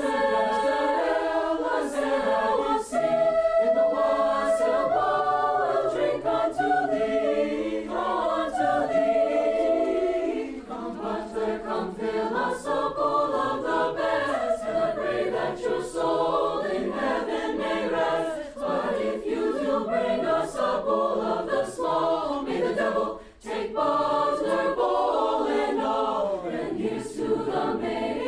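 Choir singing in several-part harmony, with a short break about three-quarters of the way through.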